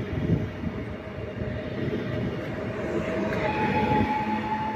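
Pesa Elf EN76 electric multiple unit pulling away, wheels knocking over the rail joints under a steady electric whine. About three and a half seconds in, the whine jumps to a higher note as the clatter eases.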